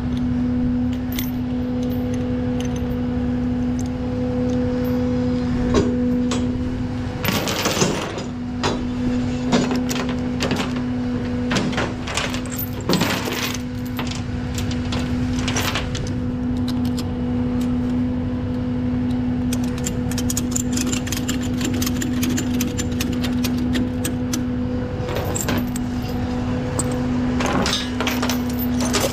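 Peterbilt rollback tow truck running with a steady hum, while chains rattle and metal clanks against the steel diamond-plate deck. The rattling comes in clusters, about a quarter to half way through and again near the end, as the rolling toolbox is chained down.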